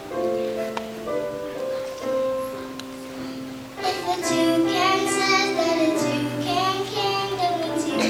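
Musical accompaniment playing held notes, then children's voices start singing a song over it about halfway through.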